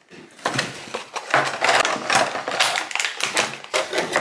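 Packaging being handled and unwrapped, with dense crinkling and crackling that starts about half a second in and runs almost to the end.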